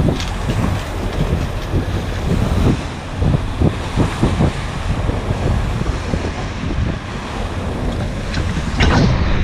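Wind buffeting the microphone in irregular gusts over a steady low rumble of a boat underway on the open sea.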